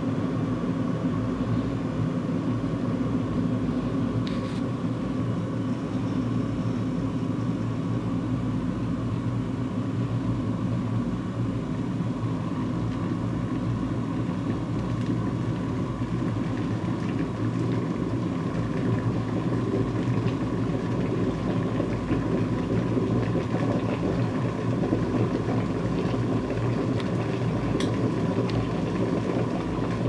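Polaris glass electric kettle heating water: a steady rushing, bubbling noise as the water comes up toward a full boil.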